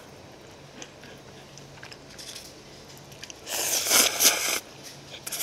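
A person slurping bibim-myeon noodles in spicy sauce from a cup with chopsticks: a loud, wet slurp about three and a half seconds in, lasting about a second, with a second slurp starting near the end.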